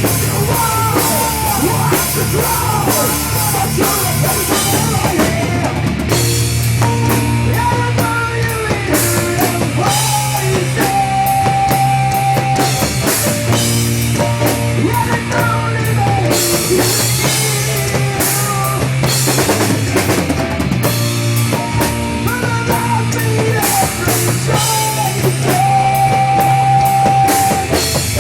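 Rock band playing loud, steady rock music with a pounding drum kit, a bass line and a bending electric-guitar lead that holds a long note twice.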